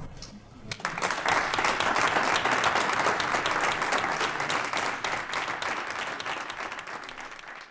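Audience applauding, starting about a second in and holding steady before fading out near the end.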